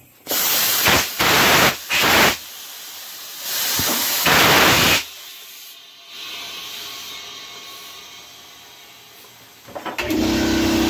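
Compressed air blasting into a freshly mounted car tire through a locking air chuck: several loud blasts of hiss, then a softer steady hiss as the tire fills. About ten seconds in, an air compressor starts up and runs with a steady hum.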